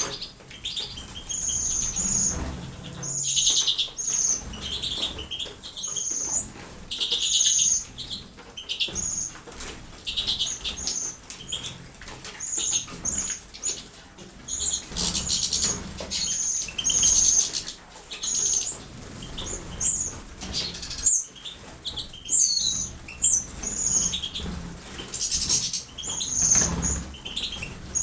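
Small cage birds chirping with many short, high calls, amid repeated bursts of wing flapping as they bathe in water.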